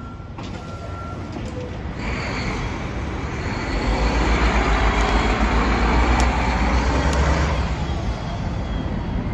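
Heavy road vehicle passing close by: a low engine rumble with road noise that builds over a few seconds, peaks midway and eases off near the end.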